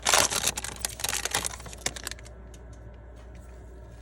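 Sports card pack and cards being handled: rapid crinkling and clicking of the wrapper and card stock for about two seconds, then only a few faint ticks.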